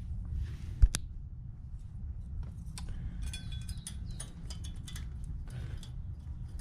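Metal brake parts being handled: a sharp click about a second in, then scattered light metallic clicks and clinks, over a steady low rumble.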